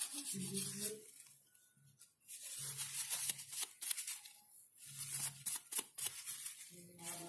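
Rustling and scraping handling noise with many sharp clicks, broken by short low hums.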